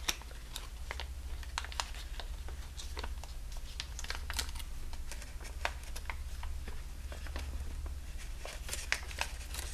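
Origami paper being folded and creased by hand: a scatter of short, irregular crinkles and crackles as the wing's raw edge is tucked behind itself and pushed inside, over a low steady hum.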